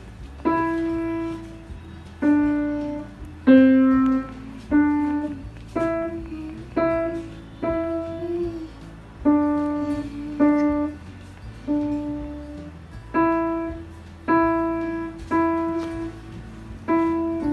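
Yamaha upright piano played one note at a time, a slow, simple melody in the middle register, each note struck and left to fade before the next, about one a second.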